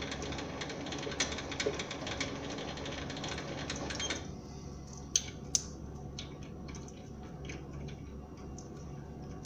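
SIEG SC4 mini lathe running, its spindle turning a threading pass on a brass workpiece, then stopping about four seconds in. After that come a few sharp clicks and small metallic taps as a nut is handled and tried on the freshly cut thread.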